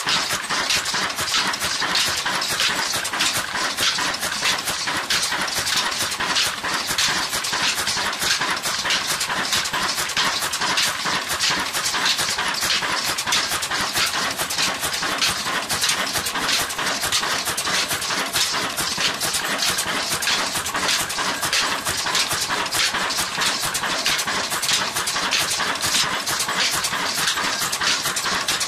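Old Ruston Hornsby stationary diesel engine running steadily, with a rapid, even mechanical clatter.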